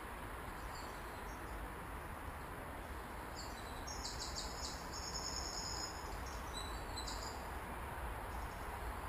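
Steady outdoor noise with a low rumble, and in the middle a high, rapidly pulsing insect chirp lasting a few seconds.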